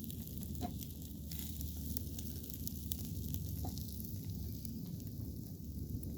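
Chicken sekuwa sizzling and crackling as it cooks, with many small pops over a steady low hum.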